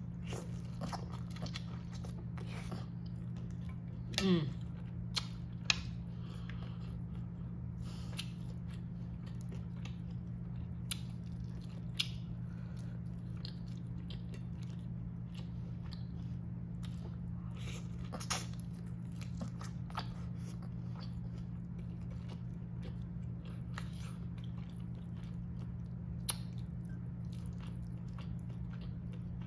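Close-miked chewing and biting of buttery lobster tail meat, with scattered wet mouth clicks and smacks. A brief falling squeak about four seconds in is the loudest sound, and a steady low hum lies underneath.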